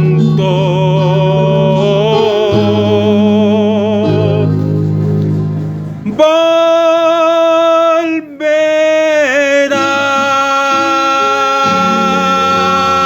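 Music: the end of a gospel song, a voice holding long notes with vibrato over a steady bass line. Near the end the voice stops and held keyboard chords carry on.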